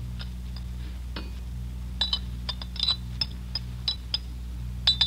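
A spoon stirring and clinking against a coffee cup: about a dozen light, irregular clinks with a brief high ring, over a steady low hum from the old radio recording.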